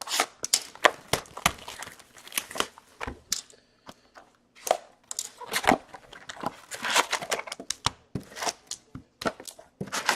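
Plastic and foil packaging crinkling and tearing as a sealed box of Fleer Showcase hockey cards and its packs are opened, with irregular sharp crackles throughout.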